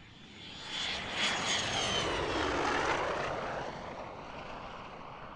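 Aero L-29 Delfin jet trainer passing by, its single turbojet swelling to a loud rushing whine over the first second. The high whine then slowly drops in pitch as the jet goes by and fades away.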